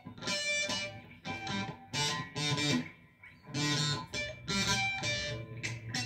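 Electric guitar being played: short phrases of picked notes, each ringing briefly, with small pauses between them.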